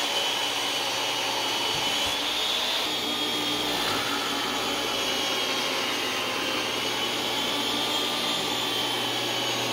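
DeWalt DWE7491 table saw running steadily while ripping a hard maple board into strips: an even whine whose pitch wavers slightly.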